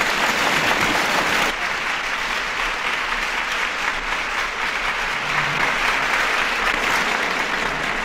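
A large audience applauding steadily, heard on an old LP recording of a speech.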